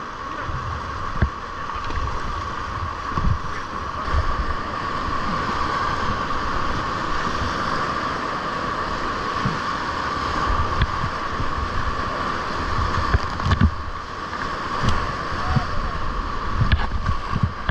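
Whitewater rapids rushing steadily, with wind buffeting the microphone in irregular low thumps.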